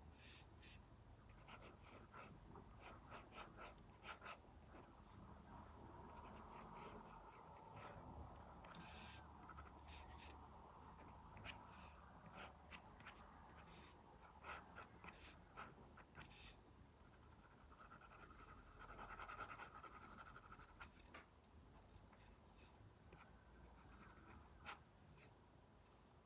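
Faint scratching of a stylus tip drawing on a tablet screen covered with a paper-like film: short strokes with sharp little taps as the tip lands, and one longer stroke a little past the middle.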